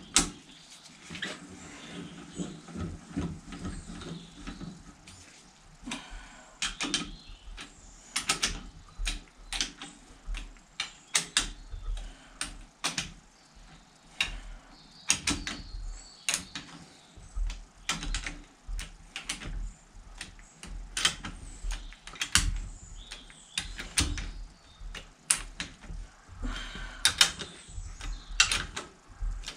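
Hand ratchet clicking in quick, uneven runs as cylinder head bolts are run down, with scattered metallic knocks of the tool against the engine.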